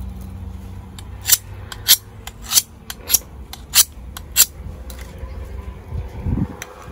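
A steel knife blade being stroked against another blade to sharpen it: six quick, sharp scraping strokes of metal on metal, about one every half second, then a dull low thump near the end.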